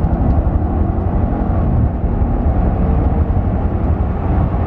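Audi RS6 C6's 5.0-litre twin-turbo V10 under hard acceleration, heard from inside the cabin: a loud, dense engine and road noise. About two seconds in it dips briefly, then the engine note climbs again.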